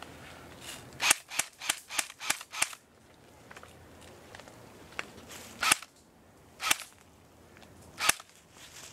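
Airsoft guns firing: a quick string of about six sharp shots, about three a second, then three single shots a second or so apart.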